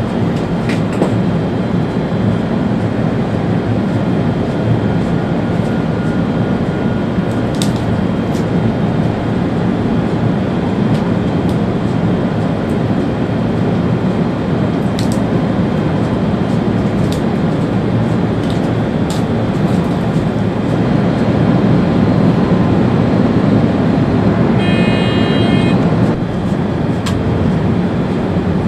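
Steady rumble of an ÖBB Railjet train running at speed, heard from inside the driver's cab, with wheel and rail noise and a few sharp clicks. Near the end the noise grows louder, a brief high electronic tone sounds, and the noise then drops off suddenly.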